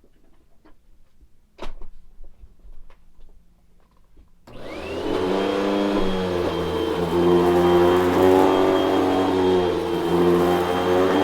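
A few handling clicks, then a vacuum cleaner switched on about four and a half seconds in: its motor spins up with a quickly rising whine and runs steadily.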